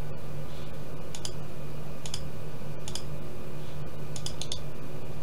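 Scattered clicks of a computer mouse, some in quick pairs, over a steady low electrical hum.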